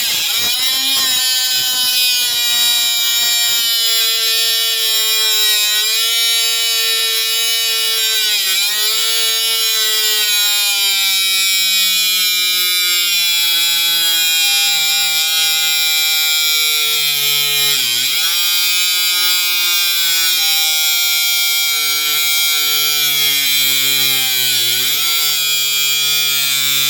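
Cordless battery angle grinder cutting through a solid steel bar about an inch thick: a steady motor whine over the hiss of the disc on the metal. The motor's pitch sags slowly as it labours under load and dips briefly three times as the disc bites.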